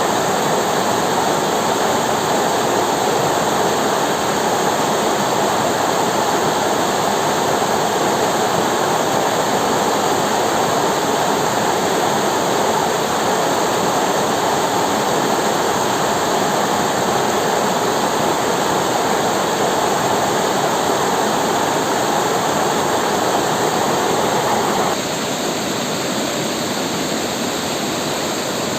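River water flowing steadily with a dense rushing sound. It drops suddenly to a slightly quieter, thinner rush near the end.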